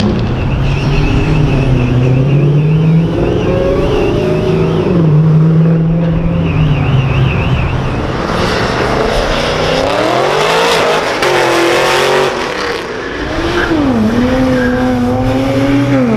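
Cars passing on a multi-lane road, their engines revving up and down several times as they pull away. About halfway through, one engine climbs steeply and a harsh rasp of tyre squeal joins it for a few seconds.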